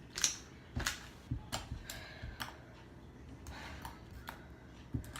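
Butter slime with beads in it being poked and squished by hand, giving irregular sticky pops and clicks.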